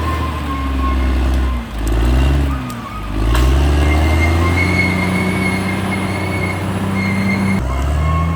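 Diesel engine of a Caterpillar D6R XL bulldozer running under work. Its note drops about two seconds in and climbs back up a second or so later, with a thin steady whine over the engine throughout.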